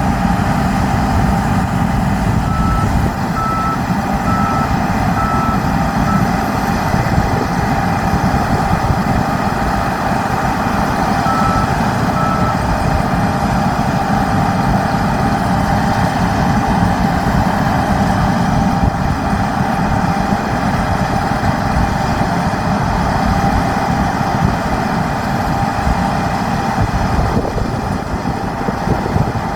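Heavy farm machinery running steadily under harvest work, a deep engine drone with a constant whine on top. A run of about six short, evenly spaced beeps comes a few seconds in and two more near the middle, like a reversing or warning alarm.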